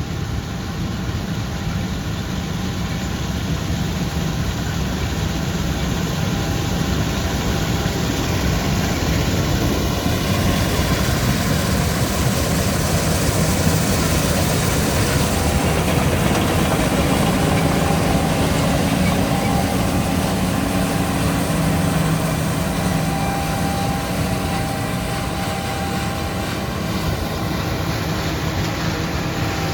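John Deere S760 combine harvester running steadily while harvesting soybeans, growing louder toward the middle and easing off a little near the end.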